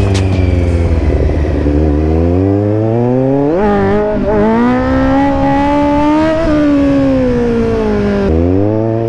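Kawasaki Z900's inline-four engine revving under hard riding. The revs fall, climb, then rise sharply about three and a half seconds in and hold high; near the end they drop abruptly and climb again.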